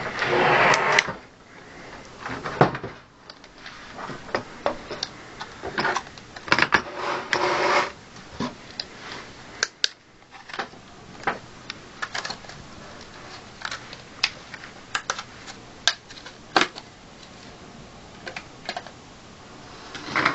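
Hands handling computer parts: a long series of sharp plastic and metal clicks and knocks, with bursts of rustling near the start and again about six to eight seconds in.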